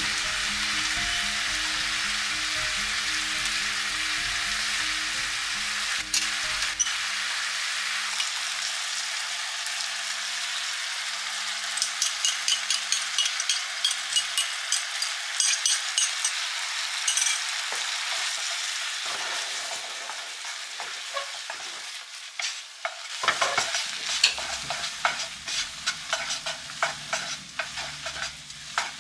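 Food sizzling steadily in a hot cast-iron skillet, with frequent clicks and scrapes from tongs tossing spaghetti in the pan, busiest in the middle and near the end.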